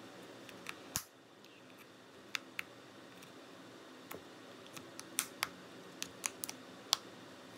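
Sharp, irregular clicks and ticks of a metal spudger prying at the seam between an iPod Classic's front and rear case, working at the case's retaining clips. There is a loud click about a second in, and the clicks cluster toward the end.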